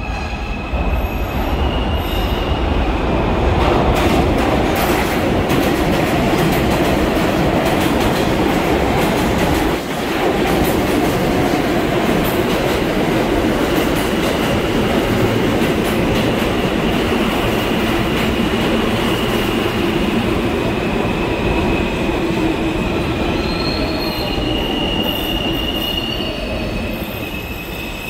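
R160 subway train pulling into an underground station: a loud, continuous rumble of steel wheels on rail, with high squealing tones from the wheels coming and going throughout.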